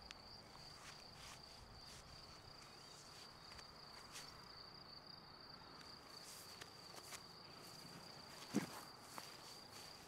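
Faint, steady high-pitched chirring of crickets, with light footsteps in grass and one thump about eight and a half seconds in.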